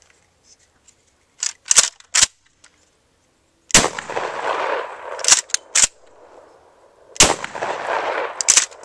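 Kel-Tec KSG 12-gauge pump-action shotgun fired twice, about three and a half seconds apart, each blast echoing for more than a second. Pairs of sharp clacks of the pump action being racked follow each shot, and a few more clacks come before the first.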